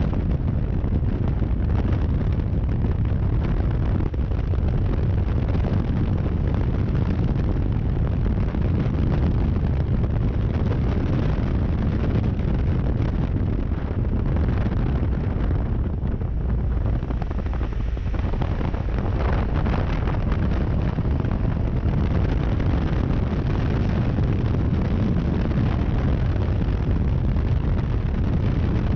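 Triumph Tiger 1200's three-cylinder engine running under way at road speed, heard through heavy wind buffeting on an onboard microphone. A steady, loud low rumble that eases slightly a little past the middle.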